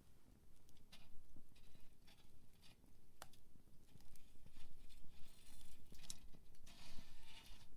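Wood campfire crackling, with irregular snaps and pops. The sharpest snap comes about three seconds in, and denser bursts of crackle come in the last few seconds.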